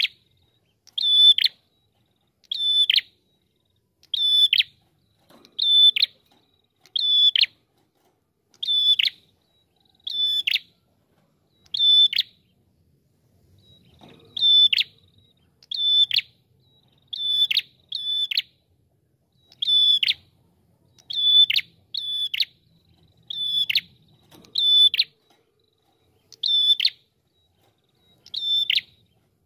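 A caged prenjak kepala merah, a small grey songbird with a rufous head, calling. It gives one short, sharp note about every one and a half seconds, each note ending in a quick drop in pitch, with one longer pause a little before the middle.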